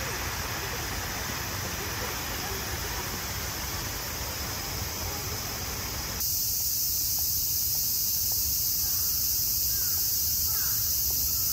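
Cicadas singing in a dense, steady high-pitched chorus, growing suddenly louder about six seconds in.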